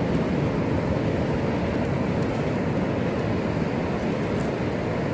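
Steady low rumble of ocean surf on a beach, with no distinct events.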